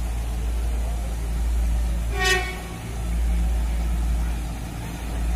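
Railway track-maintenance tamping machine approaching with a steady low rumble, giving one short horn toot a little over two seconds in.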